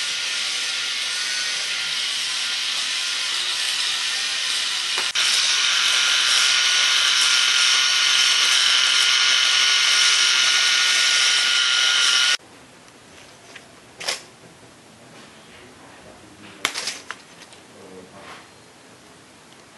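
K'nex toy motor running the model miter saw's blade and gearing: a steady whirring with a high whine that steps louder about five seconds in and cuts off abruptly about twelve seconds in. A few light plastic clicks follow.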